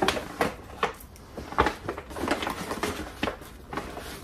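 Paper shopping bag rustling and crinkling as it is handled and unpacked, a run of short, irregular crackles.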